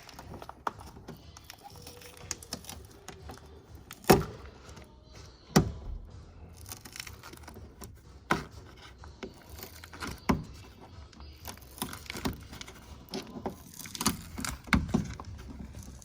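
Scattered clicks and knocks of hand tools and plastic door parts being handled inside an opened car door, with two loudest knocks about four and five and a half seconds in.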